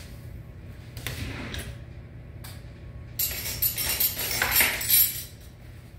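Kitchen utensils being handled: a light knock about a second in, then a rattling, scraping clatter lasting about two seconds.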